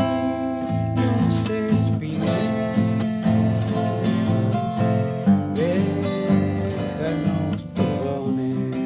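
A man singing while strumming a steel-string acoustic guitar, with steady chords throughout.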